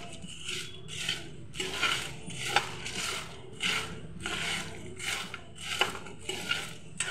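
Dry whole spices (red chillies, bay leaves, fennel and cumin seeds) being stirred with a spoon in an empty nonstick pan, with no oil. The spoon scrapes and rustles the spices over the pan in short strokes, about two a second.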